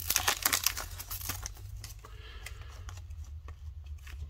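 Foil hockey card pack wrapper crinkling as the opened pack is handled and the cards are pulled out, fading after about a second and a half to a few light ticks of cards being handled. A steady low hum runs underneath.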